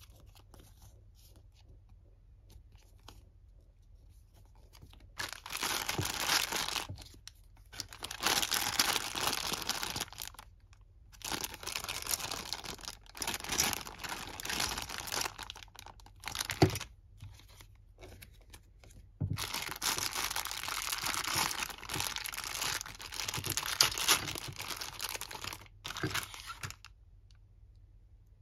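Thin clear plastic bag holding toy parts being crinkled and torn open by hand, in several spells of loud rustling after a few quiet seconds, stopping just before the end.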